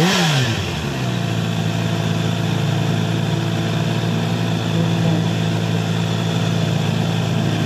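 Kawasaki H2 SX SE+ supercharged inline-four idling through an Akrapovič exhaust. A quick throttle blip right at the start falls back within about a second to a steady idle.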